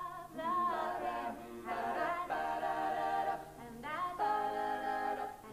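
Three women singing a cappella in harmony, holding long chords with brief gliding breaks between phrases.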